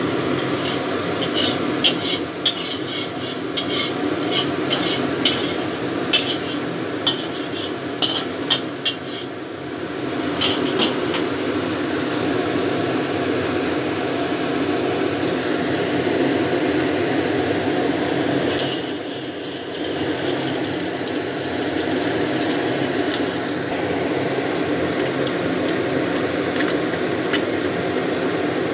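A metal utensil clinking against a wok again and again for the first ten seconds or so, over a steady rushing hum; later, fish fillets frying softly in the hot oil.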